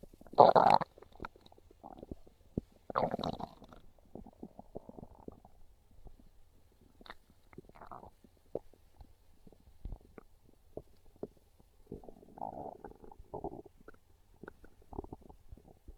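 A hungry human stomach growling and gurgling. A loud gurgle comes about half a second in and another about three seconds in, followed by scattered small pops and softer gurgles, with a busier patch near the end.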